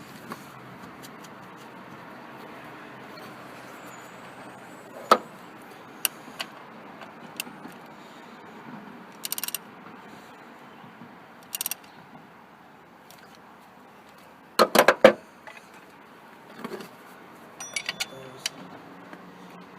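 Hand tools and metal parts being handled: scattered sharp metal clinks and knocks, the loudest a quick rattle of clanks about fifteen seconds in, over a faint steady hiss.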